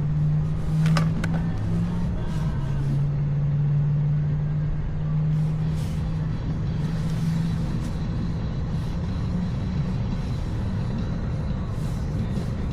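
Motorcycle engine running steadily at road speed, with wind and road noise and music mixed in.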